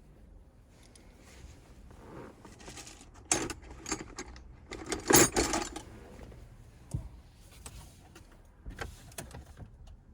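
Hands working at a truck's wiring connectors and plastic trim: irregular rustling and scattered clicks, loudest in two clusters about three and a half and five seconds in.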